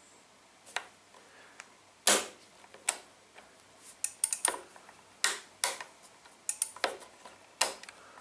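Irregular sharp clicks and light taps from a new adjustable motorcycle brake lever as its adjuster dial is turned and the lever is worked by hand. The loudest click comes about two seconds in, and the clicks come closer together in the second half.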